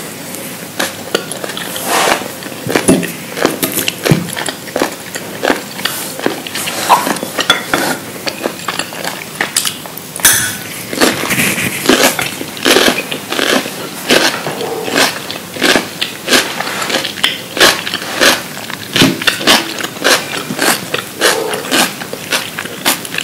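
Close-miked eating: a dense, irregular run of crunching bites and chewing from a meal with raw cucumber and kohlrabi, with utensils clicking against the dish.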